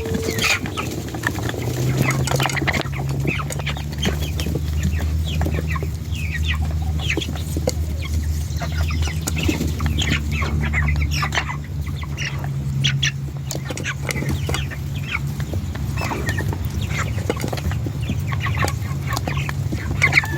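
A flock of five-week-old Cornish Cross meat chickens calling: many short, high cheeps and clucks, over a steady low hum.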